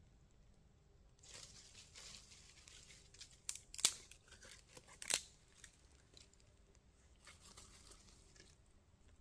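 Dry rustling and crackling from a small fire of cherry bark and damp wood being built up and tended, with three sharp snaps between about three and a half and five seconds in.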